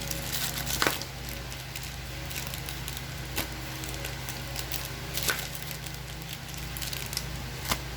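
Foil trading-card booster pack being handled and torn open by hand: scattered crinkles and crackles, the sharpest about a second in, twice in the middle and near the end, over a steady low hum.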